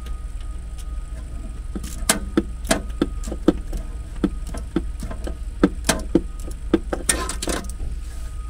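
Hand socket ratchet clicking in short strokes as it backs out a tight inverter mounting bolt: irregular sharp clicks, roughly two a second, starting about two seconds in, with a brief scrape near the end. A steady low hum runs underneath.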